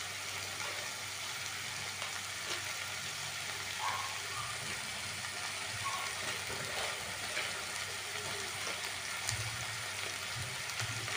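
Minced beef, mashed potato and onion sizzling steadily in oil in a frying pan, with a few faint crackles.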